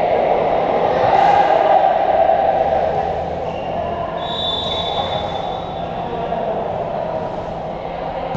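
Voices of players and spectators echoing around a large indoor sports hall, loudest in the first few seconds and then easing, with a thin high squeak about four seconds in.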